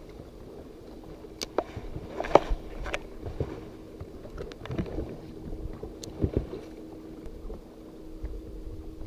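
Steady hum of a bow-mounted electric trolling motor on a bass boat, with scattered sharp clicks and knocks from a spinning rod and reel being handled, the loudest about two seconds in. Low wind rumble on the microphone.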